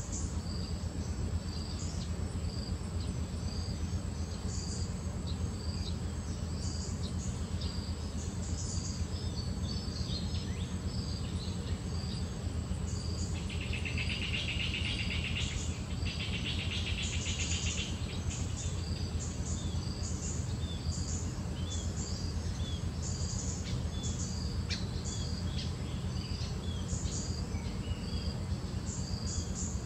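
Outdoor ambience of birds chirping and insects calling over a steady low rumble. A buzzing insect trill comes twice about halfway through, each lasting about two seconds.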